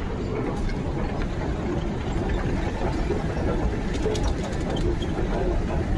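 Steady low rumble of a train in motion, heard from on board, with a few faint clicks about four seconds in.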